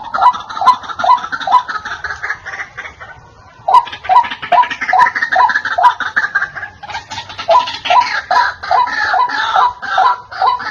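White-breasted waterhen calling: a loud run of repeated "wak" notes, about three a second. The calling breaks off briefly about three seconds in, then resumes a little faster.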